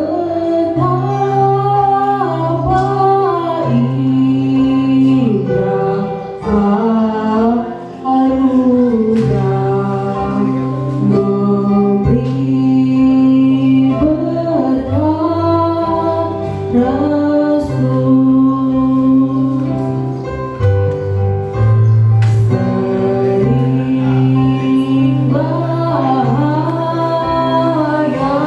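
A woman singing a slow melody into a microphone over an accompaniment with a steady bass line that changes note every few seconds.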